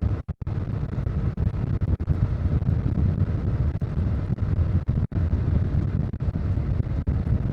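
Wind buffeting the microphone of a Harley-Davidson Low Rider S motorcycle at riding speed, with the bike's engine running underneath. The sound cuts out for an instant near the start and again about five seconds in.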